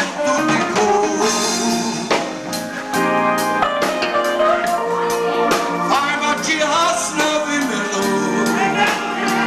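Live band music: a man sings into a microphone over electric bass guitar and a drum kit keeping a steady beat.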